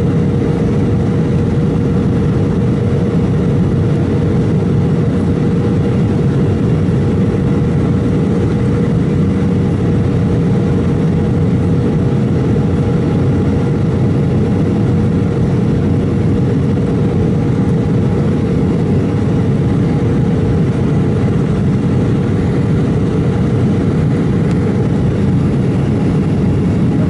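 Cabin noise of an Embraer E190 airliner in flight, heard from a seat over the wing: its GE CF34 turbofans and the airflow make a steady rush with a held drone-like tone running through it, unchanging throughout.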